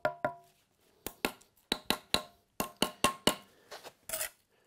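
Steel brick trowel tapping a red engineering brick down into its mortar bed: a quick series of sharp taps, each with a short metallic ring, about fifteen in small groups. About four seconds in comes a short scrape as the trowel cuts away squeezed-out mortar.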